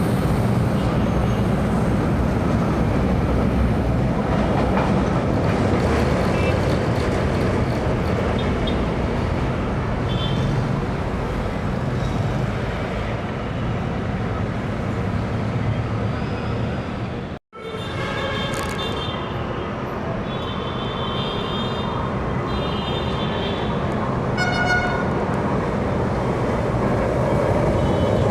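LRT-1 light rail train running through the station with a steady low rumble. After an abrupt cut about two-thirds through, another train is heard, with several short high tones over its running noise.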